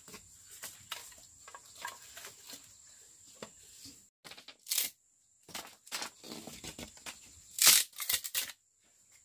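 Dry bamboo sticks and firewood clicking and clattering as they are shifted about in an open fire pit. Then a strip of bamboo is split and torn from a pole by hand, with the loudest tearing rip near the end.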